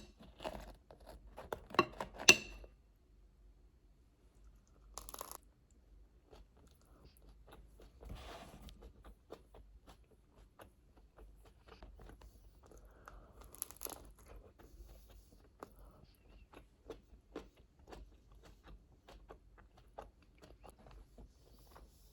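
Someone chewing crunchy food close to the microphone, a steady run of small crackling crunches several times a second, with a few louder sharp cracks in the first couple of seconds.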